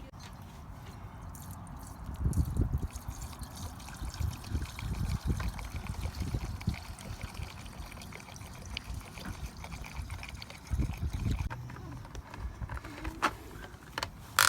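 Gasoline pouring from a gas can into a lawn mower's fuel tank, in uneven surges, with a few sharp clicks near the end.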